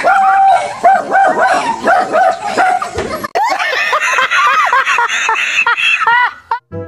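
A dog barking and yipping in quick, repeated barks. About three seconds in, this gives way to a man and a woman laughing hard.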